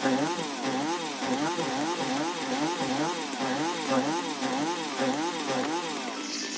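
Chainsaw engine running, its pitch rising and falling about twice a second.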